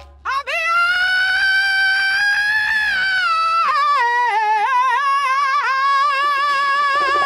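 A woman's high, wordless sung note, held and rising slightly for about three seconds, then wavering up and down rapidly for the rest; a second, lower voice joins faintly near the end.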